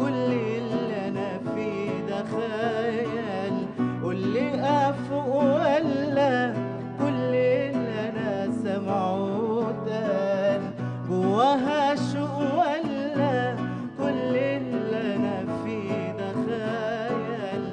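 A male voice sings a wordless, ornamented Arabic melodic line with wide vibrato over a classical guitar accompaniment that is plucked and strummed.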